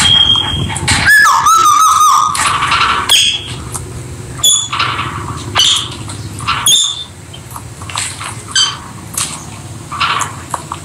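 Rosy-faced (peach-faced) lovebirds calling: a rapid, irregular series of short, sharp chirps and squeaks, with a wavering warble about a second in.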